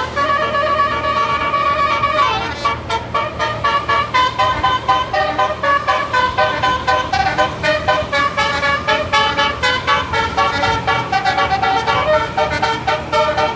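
A tour bus's 'basuri' telolet horn, a multi-tone musical air horn, playing a tune. It holds its notes for about the first two seconds, then runs through quickly pulsing, changing notes.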